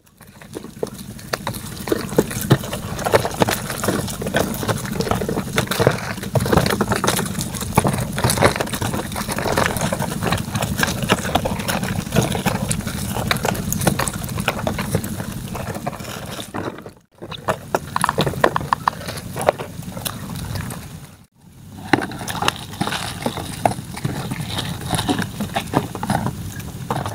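Wet crackling, clicking and rustling as live shrimp and crabs are handled and sorted on a plastic tarp, with a steady low hum underneath. The sound drops out briefly twice in the second half.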